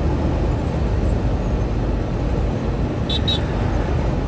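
Steady low drone of a truck's engine and road noise, with two short high chirps about three seconds in.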